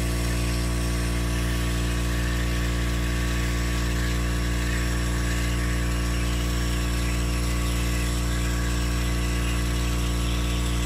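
Water filtration pump of a benchtop wire EDM running with a steady hum and hiss, keeping the cutting water clear.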